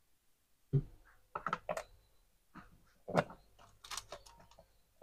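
Hands handling small plastic repair supplies on a work mat: a string of short clicks, taps and knocks, first about a second in, then in clusters around one and a half, three and four seconds in. This is the solder wick spool being set aside and the flux paste syringe being picked up.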